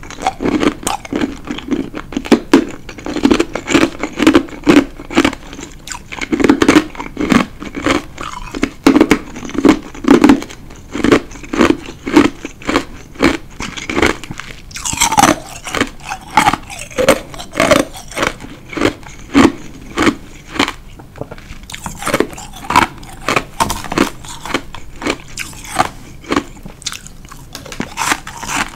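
A mouthful of ice being chewed: a steady run of crisp crunches, about two to three a second.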